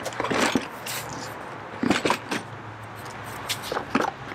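Hard plastic knocks and clicks as a Shad SH39 motorcycle top case is set onto its mounting plate and latched in place, several short knocks at the start, about two seconds in and near the end.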